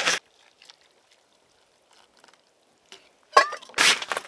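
Near silence for about three seconds, then a second of rustling with a few sharp knocks as a nylon stuff sack holding a ground sheet is handled.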